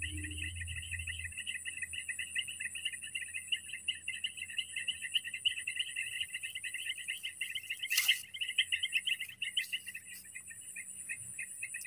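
Insects chirring in a fast, continuous pulse over a steady high-pitched insect whine, with a brief sharp click about eight seconds in.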